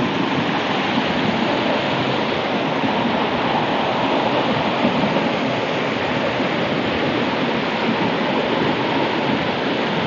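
Kempty Falls, a waterfall with several cascades: the steady rush of falling water.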